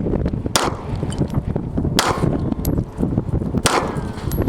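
Three pistol shots from a Hi-Point C9 9mm, about a second and a half apart.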